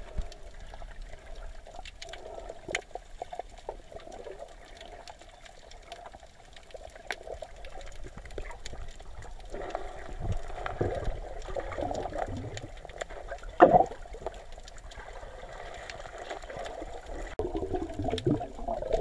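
Underwater water noise heard through a GoPro's waterproof housing: muffled sloshing and gurgling with scattered faint clicks, and one louder knock about three-quarters of the way through.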